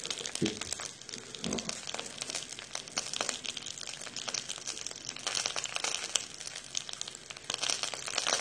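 Wild boar meat sizzling on a hot stone griddle, a dense steady crackle of fine pops, with a couple of soft thumps about half a second and a second and a half in.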